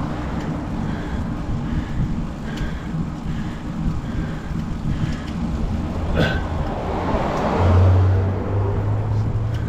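Steady low rumble, with a motor vehicle's engine growing louder and passing about eight seconds in.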